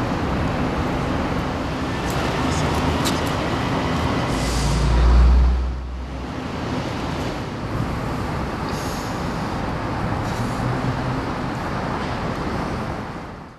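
Steady outdoor street traffic noise, with a heavier low rumble swelling and fading about four to six seconds in, then cutting off suddenly.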